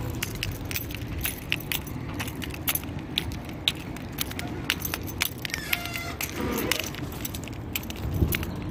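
Keys jangling in irregular light clicks as a person walks, over a low steady outdoor rumble. A short chirp sounds a little past the middle.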